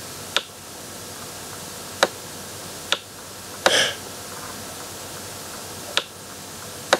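Stylus tapping on a writing tablet: five short sharp taps spread out, with one brief scratch of the pen writing near the middle, over a steady low hiss.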